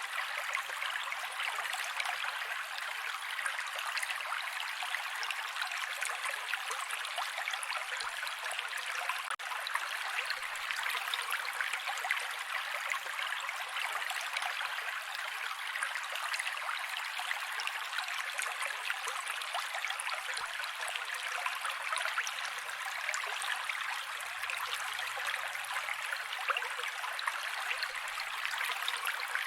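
Mountain creek flowing: a steady, even wash of running water flecked with small splashes, with almost no low rumble.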